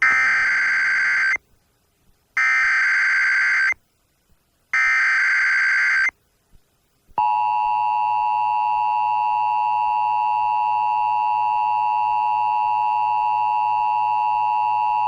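Emergency Alert System transmission: the SAME digital header sent three times as harsh screeching data bursts about a second apart, then, about seven seconds in, the steady two-tone EAS attention signal. Together they mark the start of an EAS Required Monthly Test.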